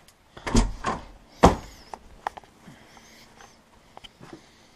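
Two loud knocks about a second apart, then a few lighter clicks and rustles, as a door is pushed open and things on a desk are handled.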